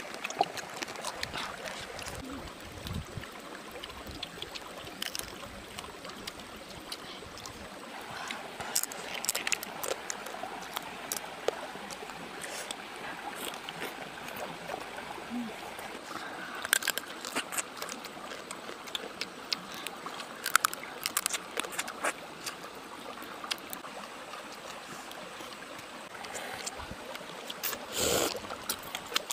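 A stream flows steadily, with scattered small crunches and clicks as raw crab shells are handled and chewed. There is a louder crunch near the end.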